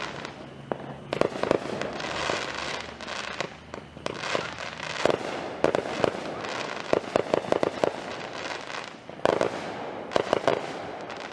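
Aerial fireworks bursting again and again: sharp bangs in quick clusters of several at a time, with crackling between them.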